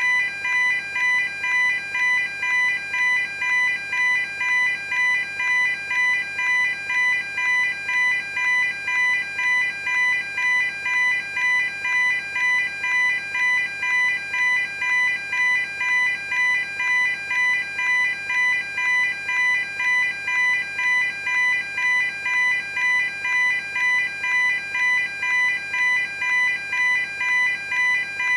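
Electronic level crossing warning alarm ringing in an even, unbroken rhythm of clear pitched dings, a little faster than one a second.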